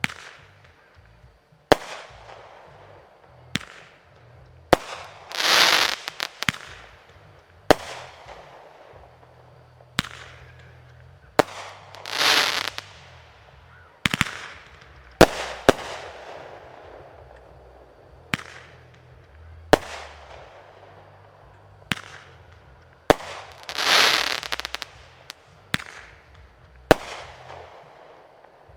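Fireworks display: sharp aerial shell bangs every second or two, with three longer hissing, crackling bursts, about five, twelve and twenty-four seconds in.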